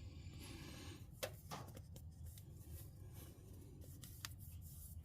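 Faint rubbing with a few light clicks as a new oil filter is spun onto its threads by hand.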